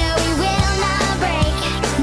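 Sped-up pop-rock song: a woman's lead vocal, pitched up by the speed-up, sings over a steady drum beat and full band.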